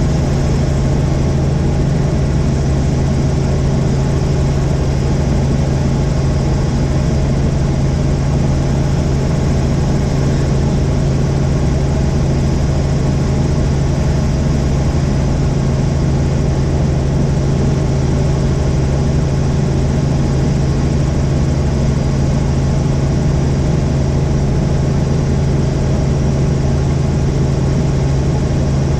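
Helicopter in flight: a loud, steady drone with a strong low hum that does not change.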